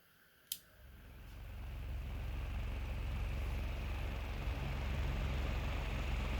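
A switch clicks, then a small homemade battery-operated fan's motor starts and spins up over about a second and a half to a steady hum with the rush of moving air.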